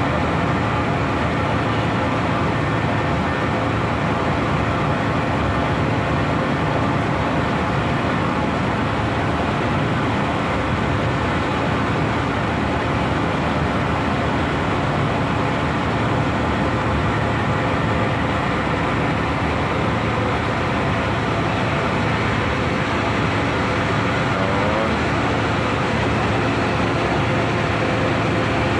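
Passenger ferry boat's engine running steadily at cruising speed, a loud, even drone with a constant hum, heard from aboard the boat.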